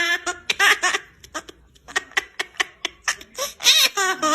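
Baby laughing: high-pitched giggles at first, then a run of short breathy laughs in quick succession, rising into a longer bout of laughter near the end.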